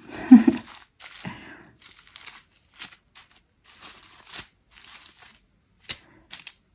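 Small plastic bags of diamond-painting drills crinkling and rustling in short, irregular bursts with light clicks, as they are sorted through by hand.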